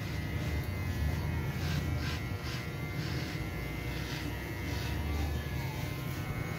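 Electric hair clipper buzzing steadily as it is run over a closely cropped scalp, with several short hissy strokes of the blade against the head.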